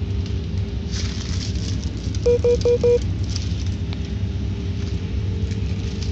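Plastic sheeting crackling as a stripped telephone cable bundle is handled on it, over a steady low background rumble. About two seconds in, four short beeps in quick succession.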